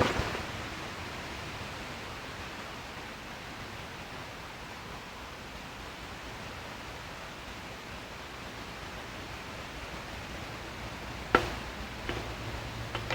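Steady hiss with no engine running, then one sharp knock about eleven seconds in and two fainter ticks after it.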